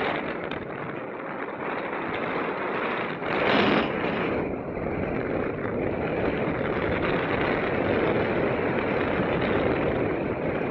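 Wind rushing over the microphone in flight under a tandem paraglider, a steady noisy rush with a stronger gust about three and a half seconds in.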